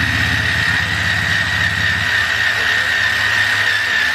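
Impact drill running continuously with a steady high whine, grinding at the rust pockets on a steel flattop griddle.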